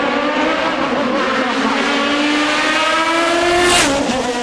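Racing car engine at full throttle climbing the hill, its pitch rising steadily, with a sharp crack near the end after which the engine note drops.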